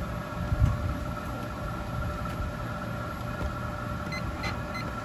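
Treadmill motor, driven by a BC KING I controller under test, running steadily at low speed with a constant hum and whine. There is a thump about half a second in. Near the end the console gives a few short beeps as the speed-up button is pressed.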